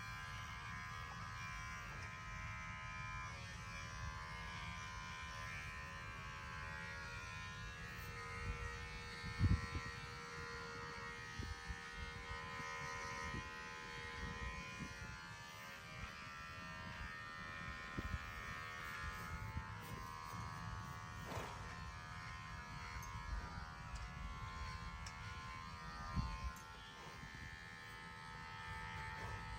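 Electric horse clippers running steadily, a buzzing hum with a stack of steady tones, as the horse is clipped. A few low thumps come through, the clearest about a third of the way in and again near the end.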